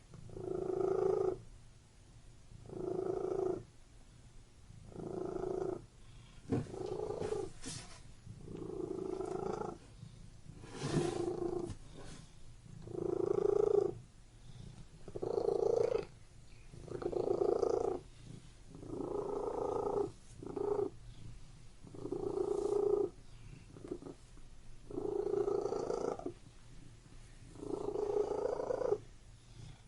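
Domestic cat purring, in regular pulses about every two seconds with a short pause between each.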